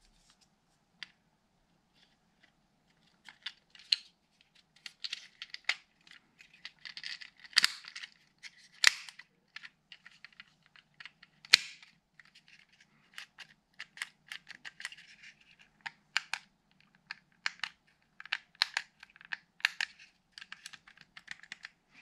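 Hands working on a car window switch panel: irregular sharp clicks, snaps and light scraping of small hard parts, with a few louder snaps around the middle.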